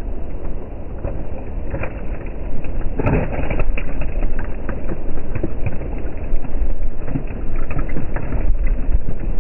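Wind buffeting the microphone: a steady, loud, low rumble with gusts swelling and easing and a few faint ticks over it.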